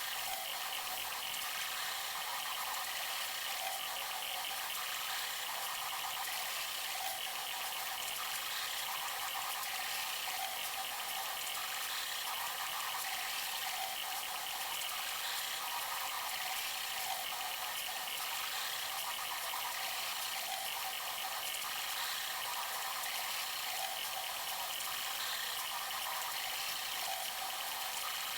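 Bambu Lab A1 3D printers printing: a steady mechanical whirring with a fine, rattly texture from the stepper motors and fans, with no pauses.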